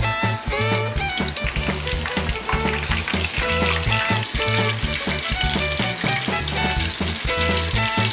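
Battered mushroom tempura deep-frying in oil at 170 °C: a steady sizzle and bubbling that grows louder about halfway through, over background music with a repeating bass line.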